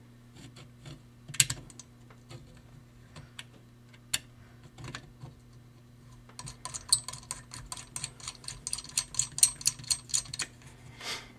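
Screws being run into the clutch basket's ring gear with a hand tool: scattered light metal clicks, then from about six seconds in a quick run of ringing metallic clicks, around six a second, for about four seconds.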